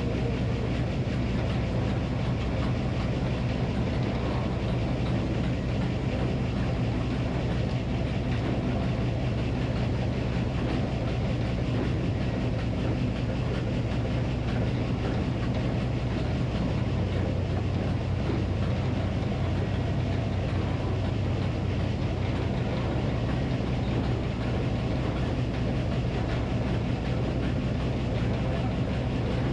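Minneapolis Moline HEB 605 cubic inch engine powering a Frick circular sawmill, running at a steady speed without any sawing load change.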